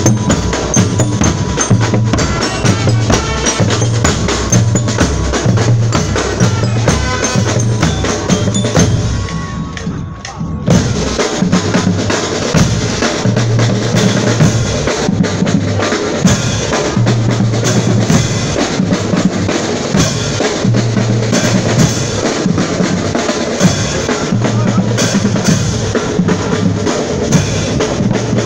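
Marching band percussion section playing a steady march rhythm on bass drums and snare drums, with hand cymbals crashing. The playing drops away briefly about ten seconds in, then comes back in.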